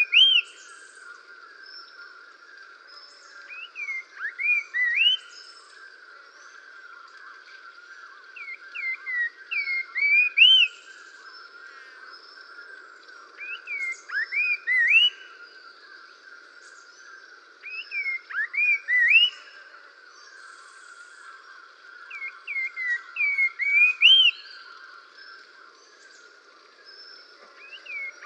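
A songbird singing a short phrase of quick rising and falling whistled notes, repeated about every five seconds, over a steady chorus of insects or frogs.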